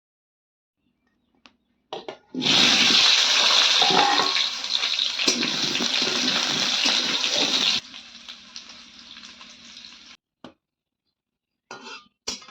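Water being poured in a steady, loud stream for about five seconds. It stops abruptly, leaving a softer trickle for a couple of seconds, and a few short splashes come near the end.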